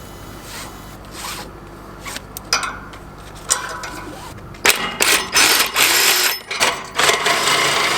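Clicks and knocks from tools and parts being handled. About halfway in, they give way to a run of loud, irregular scraping and rattling bursts.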